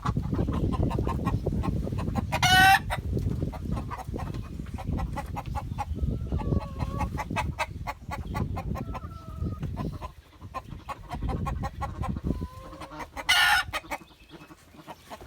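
Chickens clucking, with two loud, high squawks, one about two and a half seconds in and one near the end. Under the calls runs a dense, rapid rustling and clattering that eases off after about ten seconds.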